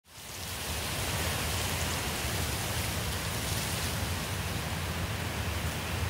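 Steady rushing noise with a low rumble underneath, rising in over the first second.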